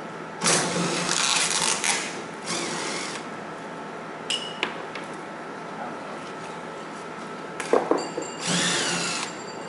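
Cordless drill run in four short bursts against the steel panel of a large cabinet, working its screws, the first burst the longest; a few sharp clicks come just before the last burst.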